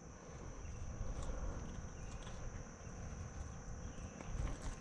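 Insects trilling steadily in one constant high-pitched tone, over a low rumble of handling noise and a few faint knocks.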